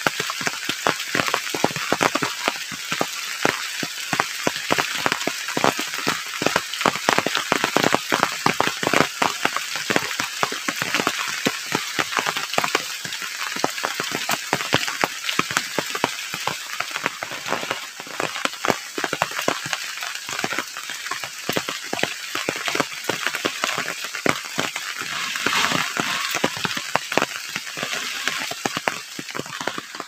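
Heavy rain falling steadily, a dense patter of individual drops striking close by.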